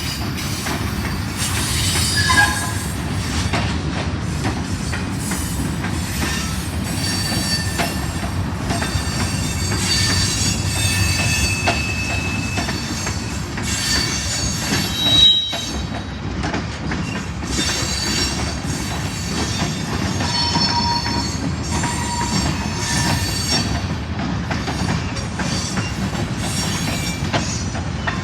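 Railroad cars rolling slowly past with a steady rumble and clanking over the rails, and high-pitched wheel squeals that come and go. The squeal is the wheel flanges grinding through the curve of the siding switch. Two louder moments stand out, about two seconds in and about halfway through.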